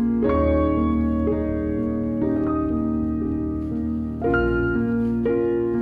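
Background music: a slow keyboard piece of sustained chords over a low bass note.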